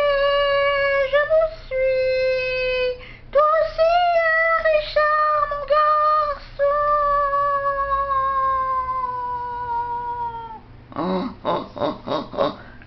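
A high-pitched voice holding several long wailing notes, each starting with a short upward glide, the last one sagging slowly over about four seconds. Near the end come a string of short, quick vocal sounds.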